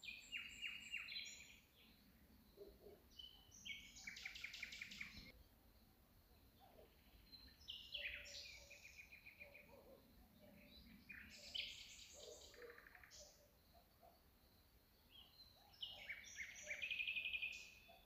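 A songbird singing: five short phrases of high, quickly repeated notes ending in trills, about one every four seconds, the last one the loudest.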